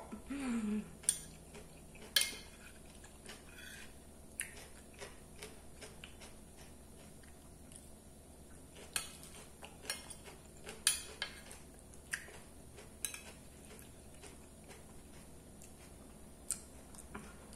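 Eating sounds: a metal fork clinking and scraping on a ceramic plate at irregular intervals, with soft chewing in between.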